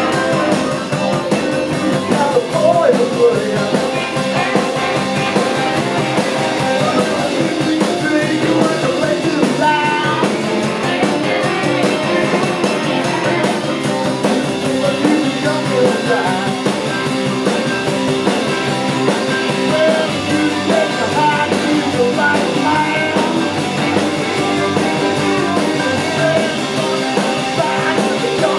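Live rock and roll band playing, with electric guitar and a singer, at a steady, loud level.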